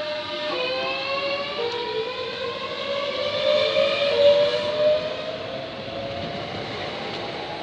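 Class 365 electric multiple unit pulling away, its traction inverters sounding as several tones that step in pitch twice early on and then rise slowly as the train gathers speed.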